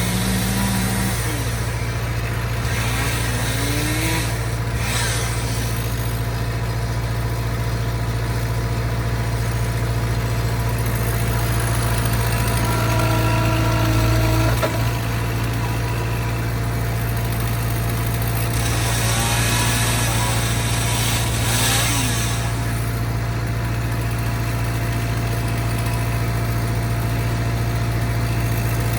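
Skid steer engine running steadily at a constant speed, with a brief higher whine about halfway through.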